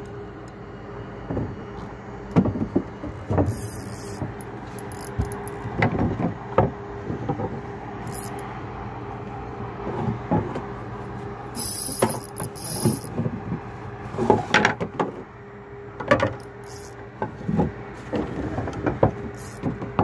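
Irregular knocks and clicks of a spinning rod and reel as a hooked fish is reeled in, over a steady mechanical hum. A few short hissy bursts come and go, the longest about twelve seconds in.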